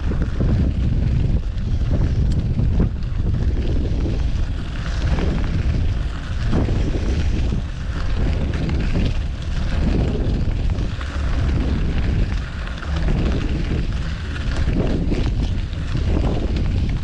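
Wind buffeting the microphone on a moving bicycle, a low rumble that swells and dips, over city street traffic.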